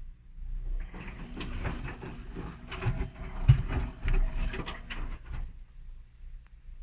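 Whirlpool washing machine drum turning during the main wash for about five seconds, with clothes and water sloshing and knocking, a thump midway, and a steady low hum underneath. It then stops suddenly for the pause in the wash rhythm.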